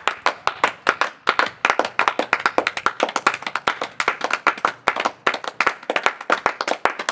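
A small group of people clapping their hands together in a fast, steady stream of claps.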